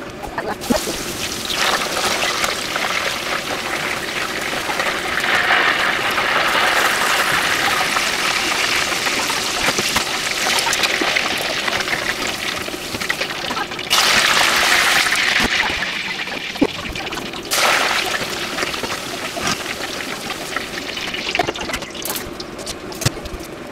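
Hot oil sizzling steadily as mushrooms and vegetables deep-fry in a pot, with scattered crackles and pops. Twice the sizzle changes abruptly in level.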